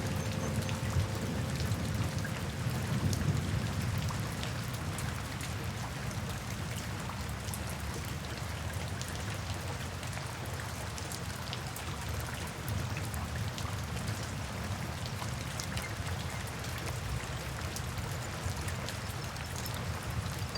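Steady rain falling, with many separate drops ticking on surfaces over a full, even hiss.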